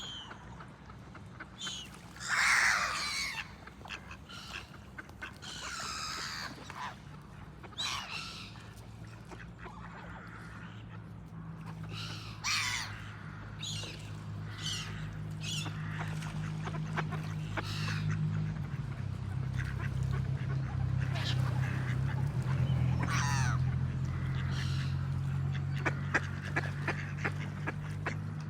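Ducks calling in separate calls every few seconds, over a low steady hum that grows louder from about a third of the way in.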